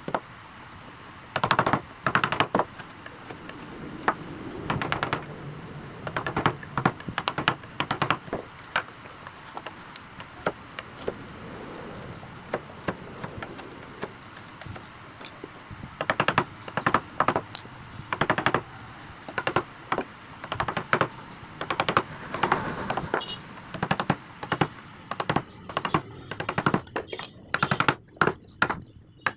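Wood-carving chisel struck with a mallet: irregular runs of sharp knocks, some in quick clusters, over a steady hiss.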